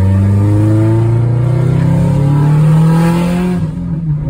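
Subaru Impreza WRX's turbocharged flat-four engine pulling under acceleration, its note rising steadily, then easing off briefly about three and a half seconds in before picking up again.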